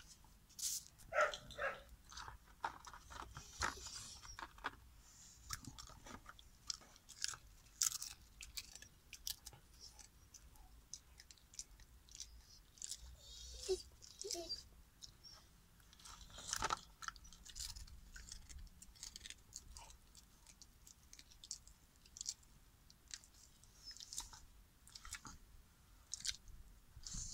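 Dog chewing and crunching dried salmon treats, with irregular crisp crunches and bites.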